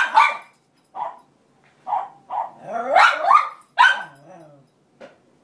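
Cairn terrier barking in a run of short barks about a second apart, with a rising whining cry about three seconds in. She is crying and barking to get her bed back from the other dog.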